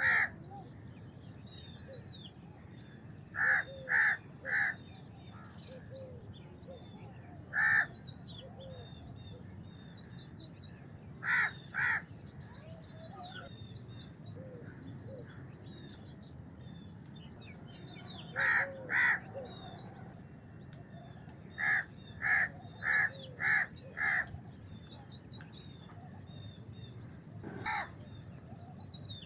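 House crows cawing in groups of one to five caws every few seconds, with small birds chirping steadily behind them.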